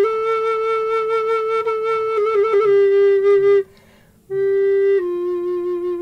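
Wooden Native American-style flute played slowly: long held notes, a quick ornamental flutter about two seconds in, then a step down in pitch. A short breath pause falls just past the middle before a lower note is held again and drops once more near the end.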